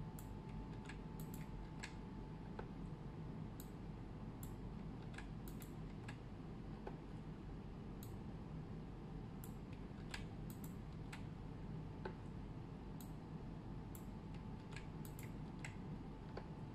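Computer mouse clicks and keyboard key presses, scattered and irregular, some in quick pairs, over a faint steady hum.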